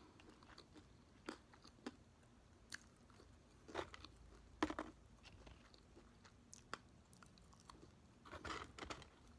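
Faint close-up chewing and mouth sounds of someone eating: scattered soft clicks and smacks, with a short cluster of them near the end.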